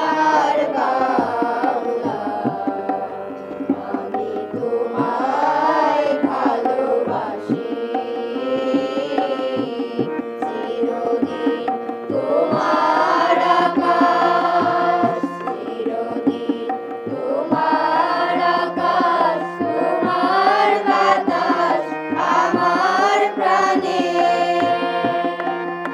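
Group singing a melody in unison, accompanied by a harmonium's sustained drone and tabla.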